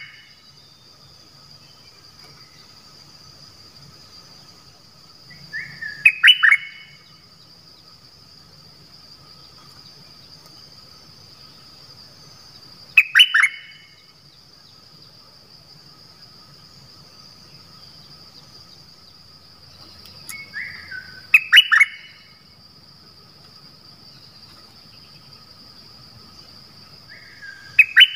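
A caged decoy bulbul (นกดอกแตง) singing short loud phrases of a few quick notes, four times, roughly every seven seconds. A steady high-pitched drone runs underneath.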